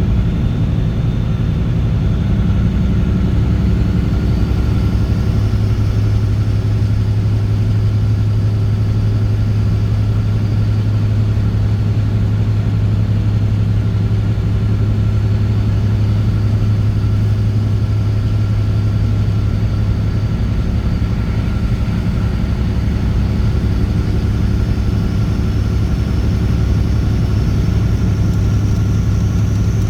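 Straight-piped Caterpillar C15 ACERT inline-six diesel in a truck under way, running with a steady low drone that firms up about five seconds in and then holds at an even pitch.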